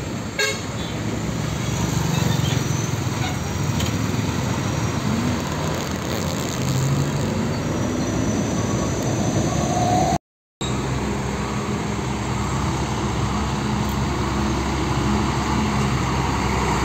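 Diesel engines of heavy trucks, green Hino Ranger 500s among them, running as they pull past in steady traffic noise, with a vehicle horn tooting. The sound drops out completely for a moment about ten seconds in.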